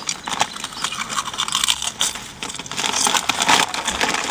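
Irregular crinkling and crunching: a rapid, uneven scatter of small clicks and rustles.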